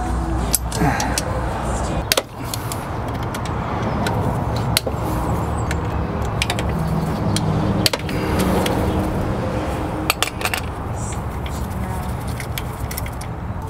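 Irregular metallic clicks and clinks of hand tools working on the fittings around a turbocharger in a car's engine bay, over a steady low hum.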